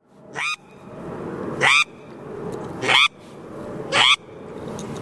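Handheld duck call blown four times, each a short squealing note that rises in pitch, about a second and a bit apart.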